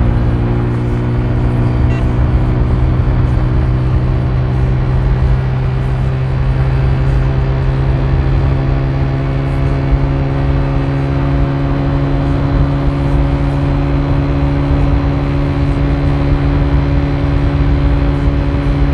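Car engine running at a steady, unchanging pitch with road and tyre rumble, heard from inside the cabin while driving.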